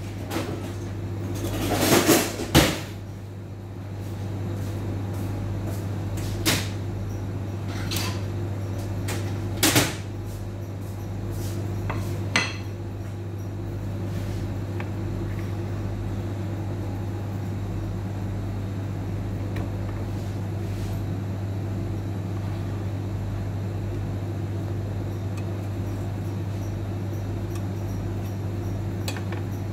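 A steady low electrical hum with a few sharp clicks and knocks in the first dozen seconds.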